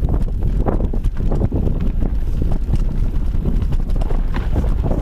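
Mountain bike riding down a rough dirt singletrack: a steady rumble from the tyres with irregular rattles and knocks as the bike bounces over bumps, and wind buffeting the microphone.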